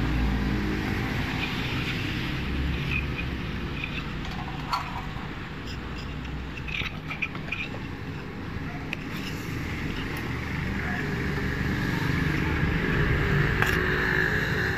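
Steady low hum and background noise with a few light knocks while the welder stands ready. Near the end a higher hiss comes up and the MIG welder's arc strikes, crackling as it starts burning 0.8 mm gasless flux-core wire.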